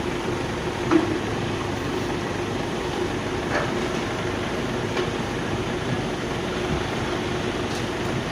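Woodworking machinery running steadily: a constant mechanical hum and rumble, with a few light knocks about one, three and a half and five seconds in.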